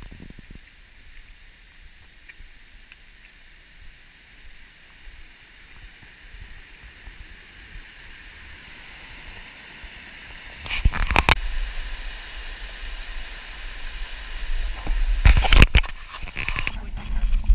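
Mountain stream and waterfall rushing, growing steadily louder as it is approached. About eleven seconds in, and again around fifteen to sixteen seconds in, short loud bursts of rumbling noise on the camera microphone cut across it.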